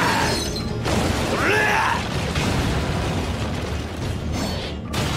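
Anime battle sound effects: a dense, loud rumble of magic blasts and impacts, with a short wavering shrill sound about a second and a half in.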